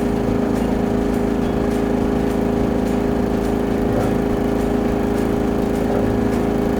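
Engine-driven high-pressure drain-jetting machine running steadily at a constant speed.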